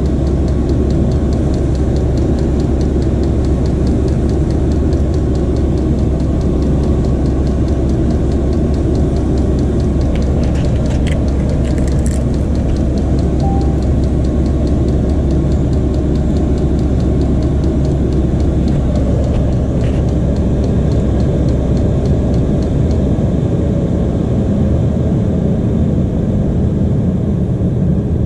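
Chinese all-in-one diesel heater running hot: a loud, steady rumble from its burner and blower, with a faint fast ticking over it.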